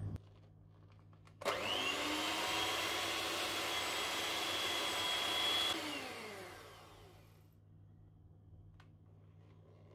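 Small electric kitchen appliance motor switched on about a second and a half in and running at a steady whine for about four seconds, then switched off and winding down with falling pitch.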